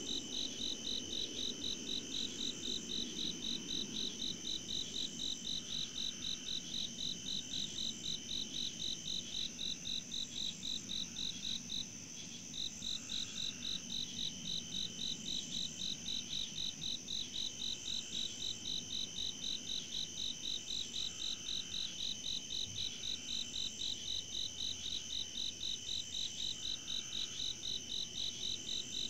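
Night chorus of crickets and other insects: a rapid, evenly pulsed chirping over a steady high trill, with slower repeating calls mixed in. The chirping breaks off briefly about twelve seconds in.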